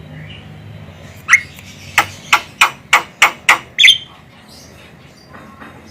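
Javan myna giving harsh, scratchy calls: a single call, then a quick run of about six calls some three a second, ending in a slightly longer one.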